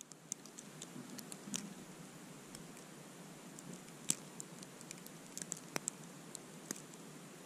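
Falling snow pattering outdoors: scattered light ticks, irregular and a few a second, over a faint steady hiss.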